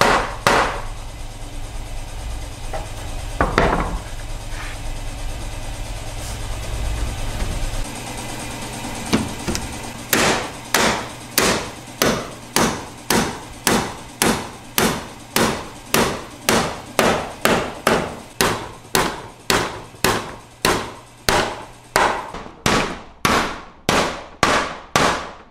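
Hammering: a few separate blows at first, then from about ten seconds in a steady run of blows at about two a second.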